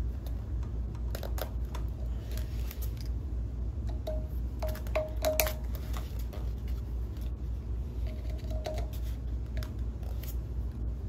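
Needle-nose pliers working an Oetiker crimp clamp on a glycol line's brass barb: a scattering of small metallic clicks and ticks at irregular moments, busiest around a few seconds in, over a steady low hum.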